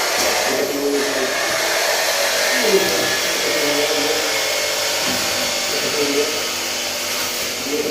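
Angle grinder motor whirring steadily at full speed while cutting the sheet-metal cable tray. Its high whine rises as it spins up just after the start and falls as it runs down near the end.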